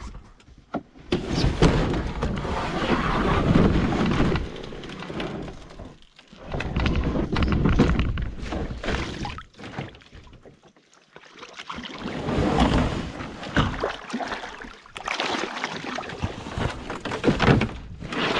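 Water sloshing around a canoe in shallow water, with knocks against the hull. It comes in rushes of a few seconds with short quieter gaps.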